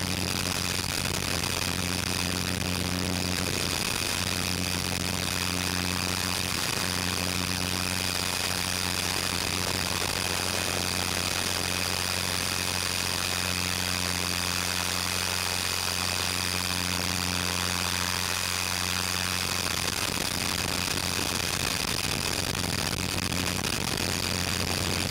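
Electric 450-size RC helicopter's rotor and brushless motor running at a constant speed: a steady low hum with a thin high whine over hiss, unchanging throughout.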